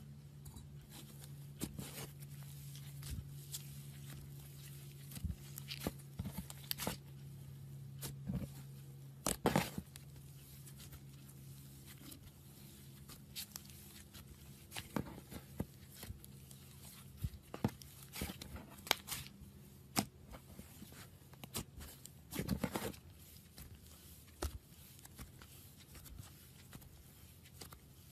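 Hands squeezing, stretching and tearing thick fluffy slime, giving irregular sticky crackles and pops, a few of them louder. A low steady hum sits underneath for about the first half.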